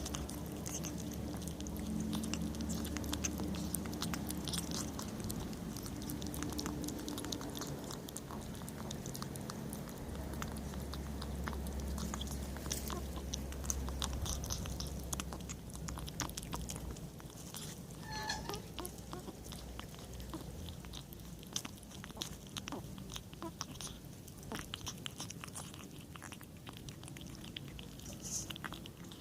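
Kitten chewing and crunching its food: many quick small clicks throughout. A low steady hum sits under the first several seconds and again around the middle, and there is a brief high-pitched sound about two-thirds of the way through.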